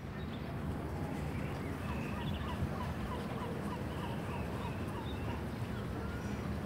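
Birds calling in a quick run of short chirps, several a second, over a steady low rumble.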